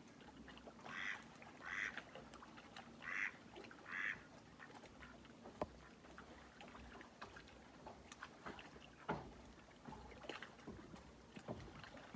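A duck quacks four times in the first few seconds, in two quick pairs, faint across the lake; after that only soft water ticks and lapping at the shore.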